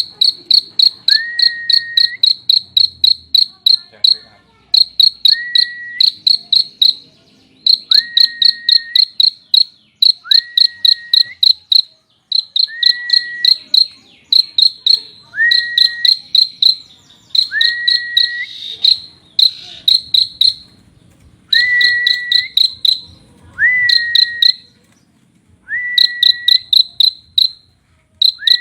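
Prenjak (prinia) song: bursts of rapid, high, chirping notes at about eight a second, alternating with a lower whistle that rises and then holds steady. The pattern repeats every couple of seconds.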